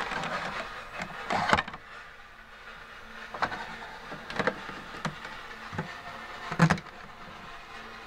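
Plastic clicks and knocks from a Casdon toy Hotpoint washing machine being handled as its door-release handle is pressed, several separate clacks with a louder one about a second and a half in and another near the end.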